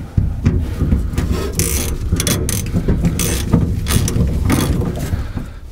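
Socket wrench ratchet clicking rapidly as a deep socket runs nuts down the threaded ends of a stainless steel U-bolt.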